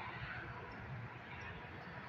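Steady hum of distant road traffic, with a few faint high chirps.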